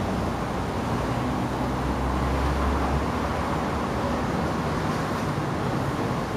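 Steady city road traffic with cars passing one after another, and a deeper low rumble from a passing vehicle about two seconds in.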